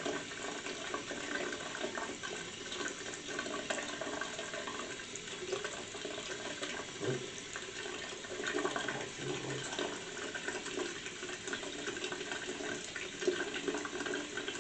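Bathroom sink tap running steadily, the water rinsing toothpaste off a silver chain.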